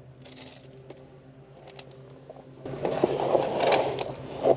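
A faint steady hum, then about two and a half seconds in loud, irregular rustling and scraping from handling close to the microphone, with many small clicks.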